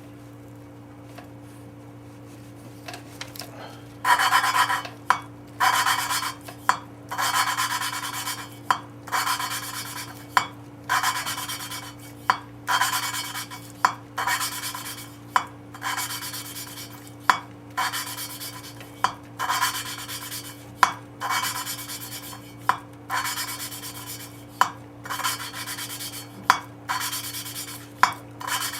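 A valve being lapped into its seat in a Ford 302 cylinder head. The suction-cup lapping stick twists the valve back and forth, grinding it against the seat through coarse lapping compound with a rhythmic gritty rasp of roughly one stroke a second, starting about four seconds in. A steady low hum runs underneath.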